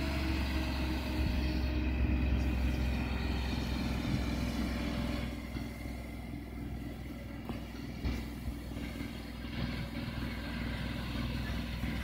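Glider launch winch's engine running steadily as it reels the launch cable back in after the glider's release; the sound eases off a little about halfway through.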